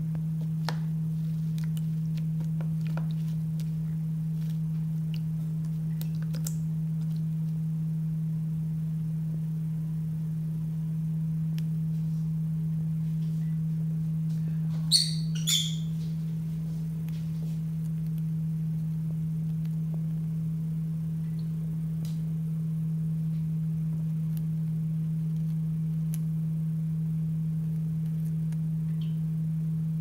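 A steady low hum runs throughout. About halfway through, a lovebird gives two short, high chirps about half a second apart. Faint scattered ticks are heard as it moves about in a shallow tray of bathwater.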